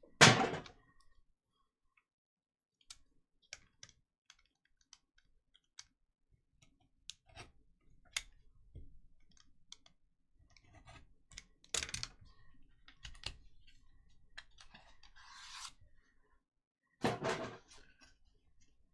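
Trading cards and their packaging being handled on a table: scattered light clicks and taps, with a loud knock right at the start, a short rustle about fifteen seconds in, and a louder burst of handling near the end.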